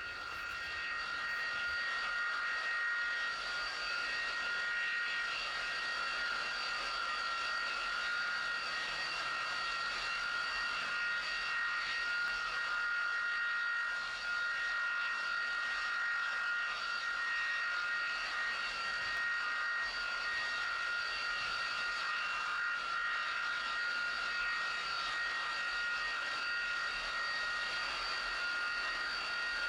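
Railroad jet-engine snowblower running: a steady, high-pitched jet whine with several fixed tones over the rushing blast of its exhaust as it blows snow off the track.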